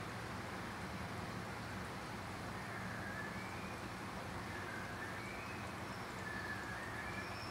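Aquarium pump running: a steady low hum under an even hiss. Faint wavering whistles come in from about three seconds in.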